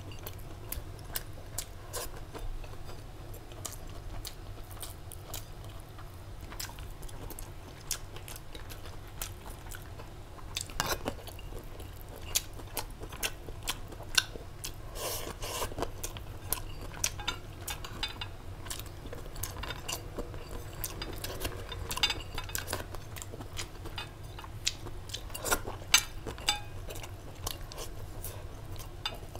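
Spoon and fork clinking and scraping on a plate, mixed with chewing: frequent short clicks through the whole stretch, over a steady low hum.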